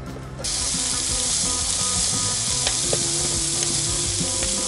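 Slices of meat sizzling on a hot round grill pan, a steady frying hiss that starts suddenly about half a second in.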